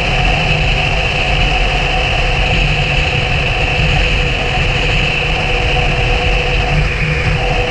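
Motorcycle engine running steadily while riding, with a low rumble and a steady hum, shifting briefly in tone near the end.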